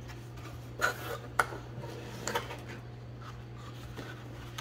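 Cardboard packaging being handled as an inner box lid is opened, with a couple of short knocks and rustles about a second in and a smaller one a little later. A steady low hum runs underneath.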